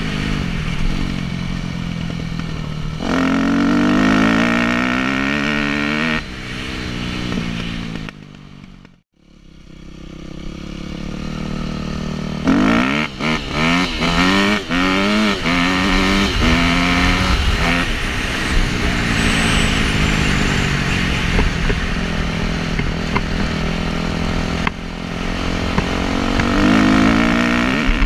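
Yamaha YZ250F's four-stroke single-cylinder engine revving up again and again as the dirt bike is ridden, with wind rushing over the microphone; the sound drops away for a moment about nine seconds in. The Keihin FCR carburettor is on its stock jetting with the fuel screw four turns out, which gives a slight bog when the throttle is whacked open at low revs.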